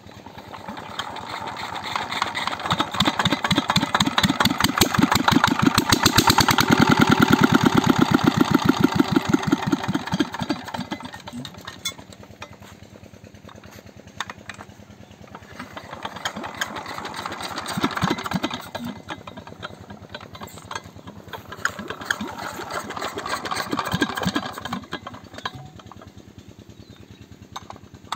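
Homemade mini diesel engine running with a fast, even firing beat. It builds up over the first few seconds and is loudest about six to ten seconds in, then falls off and swells again twice.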